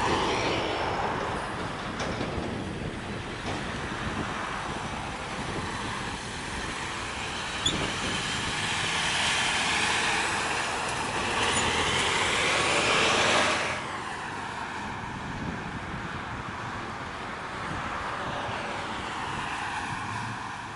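Heavy trucks passing close on the road, their tyres and engines swelling and fading as each goes by. The loudest, a flatbed tractor-trailer, builds up and then cuts off abruptly about two-thirds of the way through.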